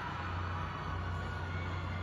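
Crowd of fans cheering and screaming, heard as a steady wash of voices over a constant low hum.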